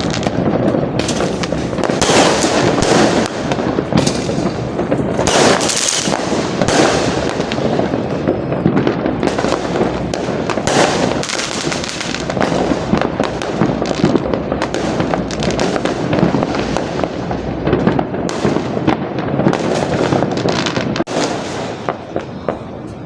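Fireworks going off in a dense, continuous barrage, many bangs and crackles overlapping without a pause.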